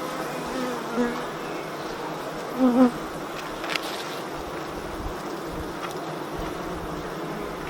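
Honeybees buzzing steadily around an open hive, with short louder buzzes about a second in and again just before three seconds in. A light click sounds a little later.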